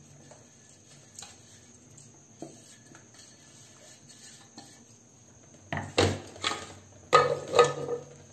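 Stainless-steel mixer-grinder jar being emptied into a metal bowl with a spoon: faint scraping and small clicks, then several louder metallic clanks with a brief ringing in the last few seconds.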